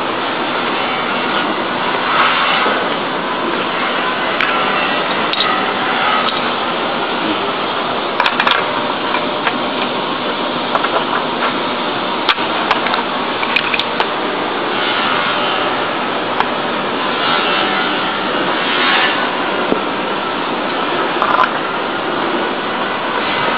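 Steady workshop noise with scattered sharp clicks and knocks during furniture assembly.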